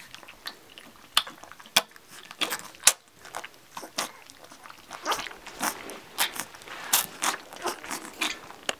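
Yellow Labrador puppies lapping and slurping milk from a stainless steel saucer feeding dish: irregular wet smacks and clicks, busier in the second half. They are young puppies just learning to lap, not quite ready to feed from a dish.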